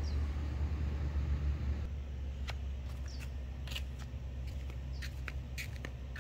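Outdoor background sound: a steady low rumble that eases about two seconds in, with scattered short, high chirps and light clicks.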